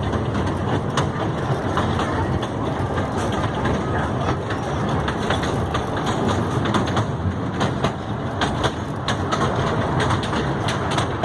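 Small ride-on amusement train running: a steady rumble with irregular clacks and rattles.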